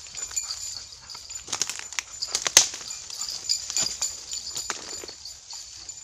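Footsteps crunching through dry leaf litter and undergrowth, with twigs cracking in an irregular run of short snaps; the sharpest crack comes about two and a half seconds in.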